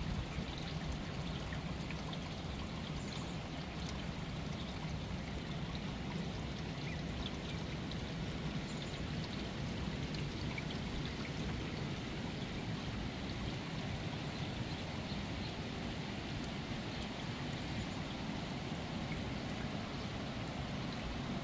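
Steady rain falling, an even hiss with no breaks, over a low steady hum.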